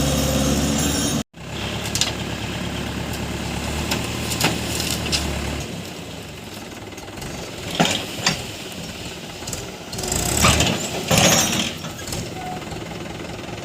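Diesel engine of heavy earthmoving machinery running steadily; the sound cuts out abruptly about a second in, then the engine goes on more quietly. In the second half come several sharp knocks and short noisy bursts of rattling.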